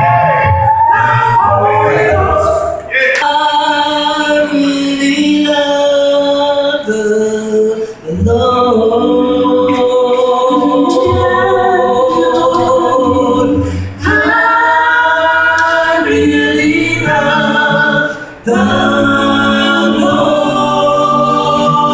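A small gospel vocal group of men and women singing a cappella in close harmony into microphones, amplified through a PA, with brief pauses between phrases.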